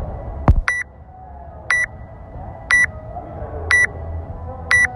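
Countdown timer beeping before the start of a timed workout: short, high-pitched beeps about once a second, five in all. A sharp knock comes about half a second in, just before the first beep.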